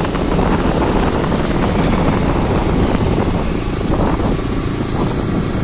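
Steady rumble of a moving road vehicle, engine and road noise, with no break.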